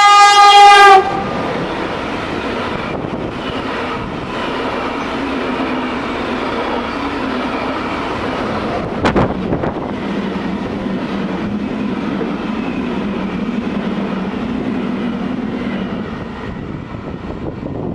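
A train horn sounds one loud blast of about a second, then a red electric-hauled passenger train runs past on the adjacent track with a steady rumble of wheels on rail and a single sharp click about nine seconds in. The noise eases off near the end.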